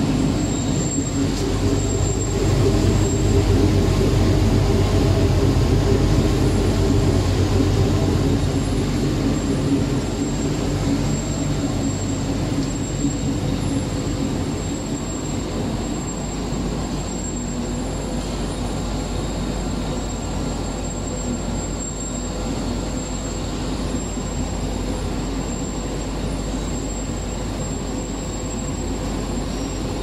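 Stainless-steel rotary drum dry-cleaning machine for chili peppers and spices running: a steady rumbling drone of the turning drum and its drive, with a thin high whine held over it, a little louder for the first dozen seconds or so and then settling.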